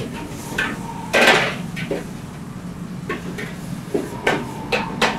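Metal ladle knocking against a wok during wok tossing: a string of about nine irregular clanks, the loudest and noisiest about a second in. A wok range's burner hums steadily underneath.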